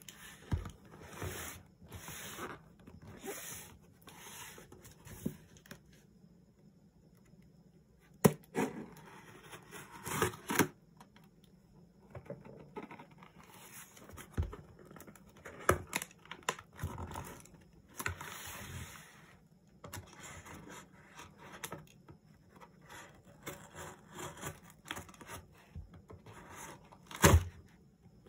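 Knife blade scraping and slicing through packing tape on a corrugated cardboard box, in irregular rasping and tearing strokes, with the box handled and turned over on a wooden table. A few sharp knocks, the loudest near the end.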